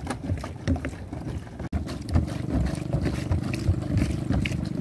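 Scattered low thuds of footsteps on a floating plastic pier, then, after a short break in the sound about two seconds in, a boat engine running steadily at a low pitch, with more thuds over it.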